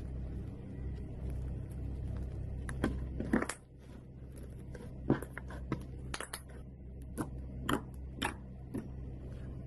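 Slime being pressed and squished by hand, giving a dozen or so irregular sharp pops and crackles over a low steady hum.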